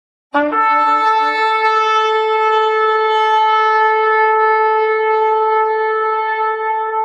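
A shofar blown in one long sustained blast. It opens with a brief lower tone, then settles on a steady, bright note held without a break.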